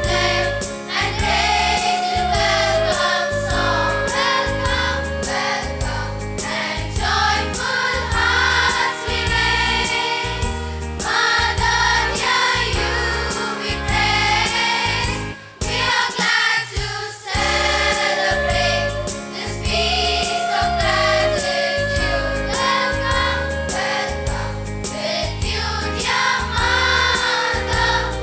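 A girl's solo voice and a large girls' choir singing into microphones over accompaniment with a steady beat. The music breaks off briefly about halfway through, then goes on.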